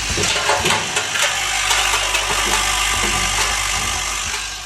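Vibratory bowl feeder of a screw counting and packing machine running: a steady low hum under a dense clatter of screws rattling and jostling up the bowl's track. It eases off near the end.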